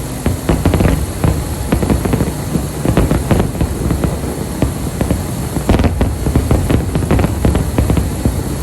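Fireworks display: a dense, unbroken run of sharp bangs and crackles, many a second, over a constant low rumble.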